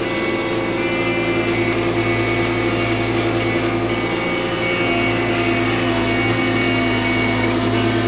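Hydrema 906D excavator's diesel engine running steadily, with higher whining tones over it that shift slightly partway through.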